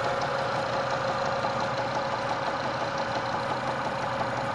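Car engine idling steadily with a light, regular tapping knock, which the owner suspects comes from a worn belt tensioner pulley that has slight play.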